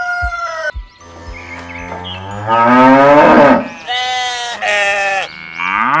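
Animal sound effects for a cartoon farm. A rooster's crow tails off in the first second, then a cow moos low, followed by a run of loud sheep bleats.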